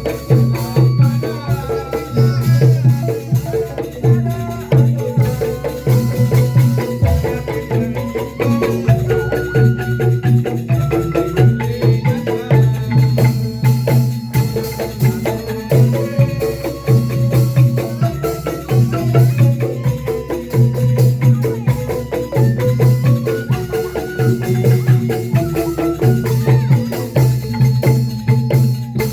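Instrumental music led by tuned percussion, with melodic notes changing over a steady pulsing beat and rapid struck strokes throughout.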